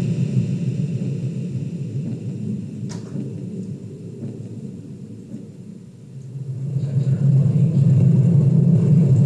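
Audio from the MiniBox spirit-box app: a low rumbling drone that fades down over about six seconds and swells back up, with a sharp click about three seconds in.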